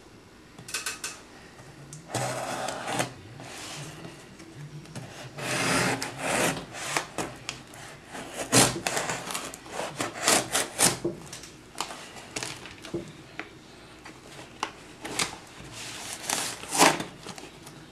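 Kershaw Junkyard Dog 2 folding knife slicing the packing tape along a cardboard box's seams, in irregular scraping, rasping strokes with sharper crackling as the tape parts, and the cardboard rubbing as the box is held and shifted.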